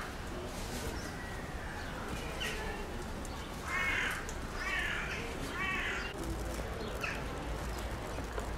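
A crow cawing about five times, the loudest call about four seconds in, over a steady low outdoor rumble.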